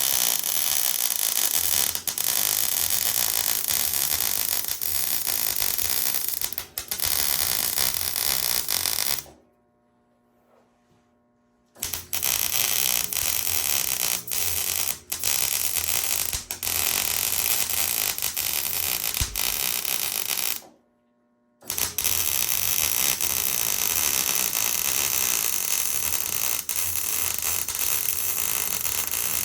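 Electric arc welder welding the steel sump guard: a steady crackling hiss of the arc in three long runs, breaking off briefly about nine seconds in and again about twenty-one seconds in.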